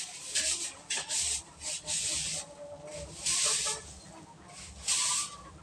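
Long-handled broom sweeping a concrete floor: about five brisk, scratchy swishes, irregularly spaced, each lasting well under a second.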